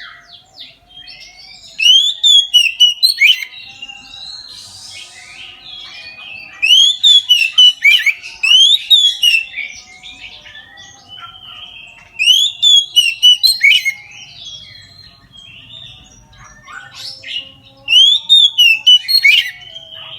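Oriental magpie-robin (kacer) in full, loud 'ngeplong' song: four bursts of rapid, repeated slurred whistled notes a few seconds apart, with softer warbling in between.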